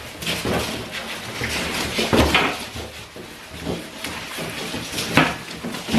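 Furniture packaging and parts being handled while unpacking: continuous rustling and scraping, with a heavier knock about two seconds in and another about five seconds in.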